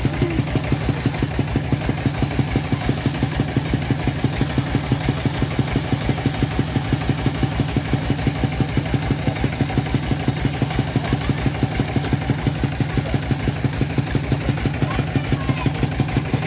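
Engine of a water-well boring rig running steadily with a regular rapid beat, several pulses a second, as the newly struck borehole is flushed and muddy water pours from the casing.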